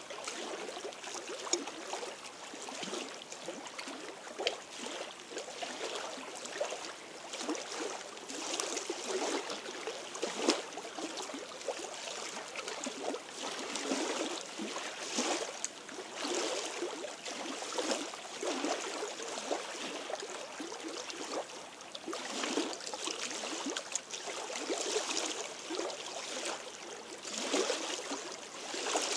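Small lake waves lapping and splashing unevenly against a rocky shoreline, with a couple of sharper slaps.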